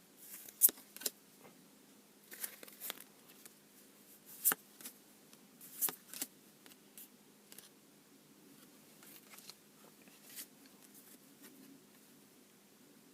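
Yu-Gi-Oh trading cards being handled and set down: scattered light clicks and rustles, with a few sharper taps in the first half that thin out later.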